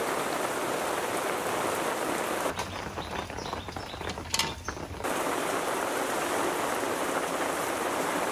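Steady heavy rain. Midway it gives way for about two and a half seconds to a quieter stretch with small clicks and one sharp knock, then the rain comes back.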